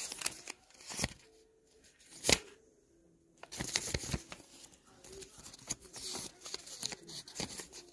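Sheets of paper being handled by fingers: irregular rustling and crinkling with short clicks, the loudest a sharp paper snap a little over two seconds in.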